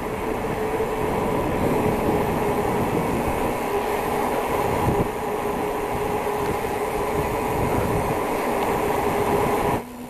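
Wind and tyre noise rushing past a bicycle on a fast downhill coast, with a steady whine running through it; it cuts off suddenly near the end.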